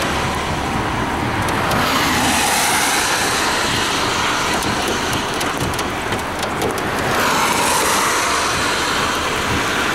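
Highway traffic noise, a steady rush of tyres and engines, swelling as cars pass close by about two seconds in and again near the end, with a brief run of faint ticks midway.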